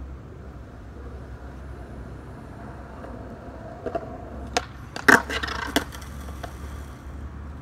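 Skateboard on concrete: a steady rolling rumble, then a run of sharp clacks between about four and six and a half seconds in, the loudest about five seconds in, as the board strikes the concrete.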